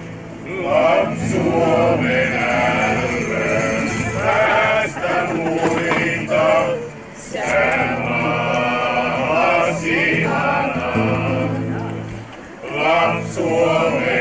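Small mixed group of men and women singing together, accompanied by an acoustic guitar. The singing breaks off briefly about seven seconds in and again shortly before the end, between phrases.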